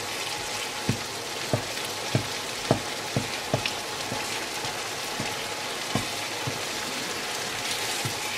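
A thick tomato, onion and chili pepper mixture sizzling and bubbling in a non-stick pan while a wooden spoon stirs it, with short, irregular knocks of the spoon against the pan, most of them in the first few seconds.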